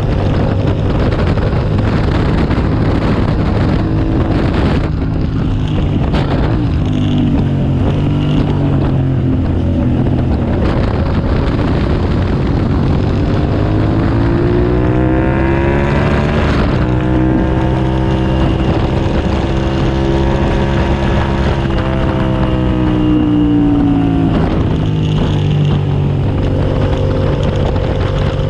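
2007 Suzuki SV650S's 645 cc V-twin engine running hard under a rushing of wind and road noise. The engine note climbs about halfway through, holds high for several seconds, then falls away near the end.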